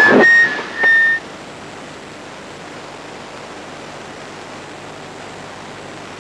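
Steady hiss of radio static from an amateur television receiver's sound channel, with no audio being sent on it. It follows a brief loud burst of voice mixed with a steady whistle-like tone that cuts off about a second in.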